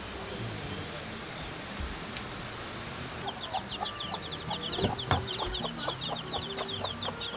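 A hen clucking from about three seconds in, over rapid high chirping. Before that, a high chirp repeats steadily about twice a second.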